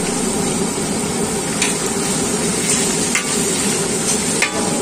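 Chicken leg pieces deep-frying in hot oil in a large iron karahi, a steady sizzle, with a few light metal clinks of a perforated ladle against the pan as the fried pieces are scooped out.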